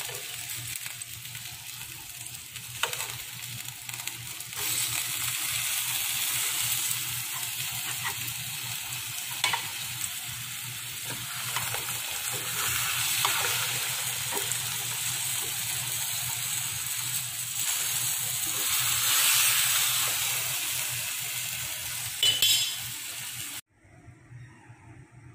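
Whole fish frying in a black grill pan, sizzling steadily with a few sharp clicks. The sizzle cuts off suddenly near the end.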